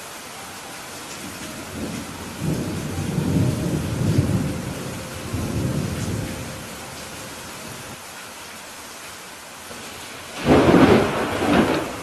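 Steady rain falling in a thunderstorm, with a low roll of thunder rumbling from about two to six seconds in, then a sudden louder thunderclap about ten seconds in that fades over a second or so.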